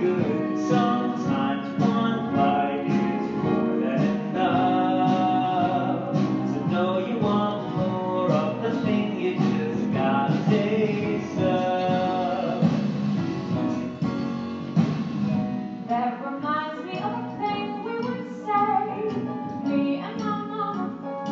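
A woman singing a musical-theatre song over strummed acoustic guitar accompaniment.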